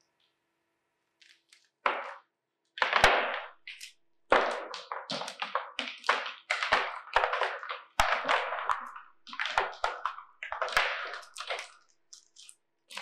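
Pomegranate rind and seeds being pulled and torn apart by hand: an irregular run of crackling, tearing sounds with sharp snaps, starting about two seconds in after near quiet.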